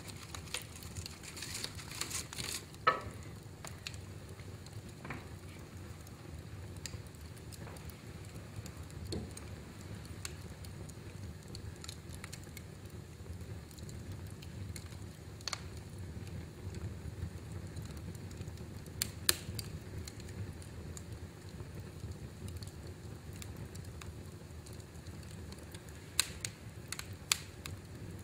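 Fire burning in a fireplace: a steady low rumble of flames with scattered crackles and a few sharp pops, the loudest a few seconds in.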